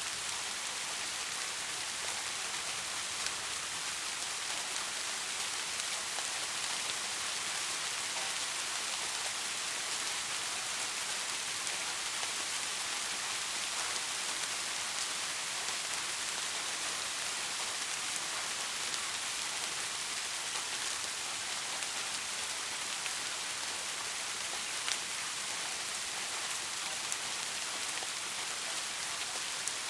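Steady rain falling on hard surfaces, an even hiss with scattered drop ticks.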